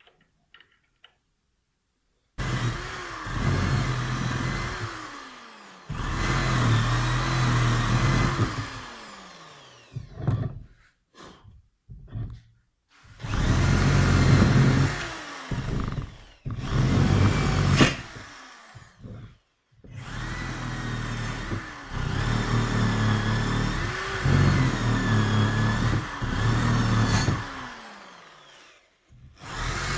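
Handheld electric power tool cleaning the broken scooter variator cover ahead of welding, started and stopped over and over from about two seconds in. Each run spins up to a steady whine, and it winds down in a falling tone when released.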